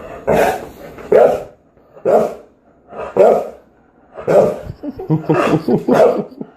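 A dog barking repeatedly, about once a second, with the barks coming quicker together near the end.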